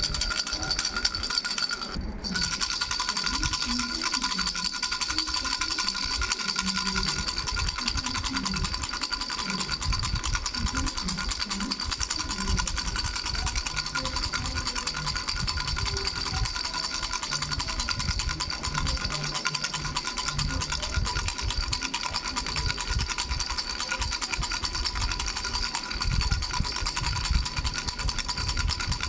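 Three-bell baby rattle shaken rapidly and continuously, its small bells jingling steadily, with a brief pause about two seconds in.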